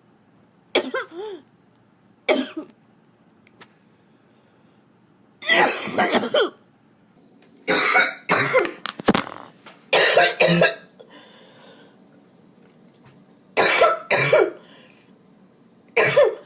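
Harsh chest coughing from a heavy cold: several coughing fits spaced a few seconds apart, some single coughs and some runs of two or three coughs in quick succession.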